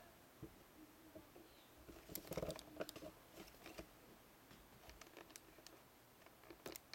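Near silence: quiet room tone with a few faint clicks and rustles, a small cluster of them about two seconds in.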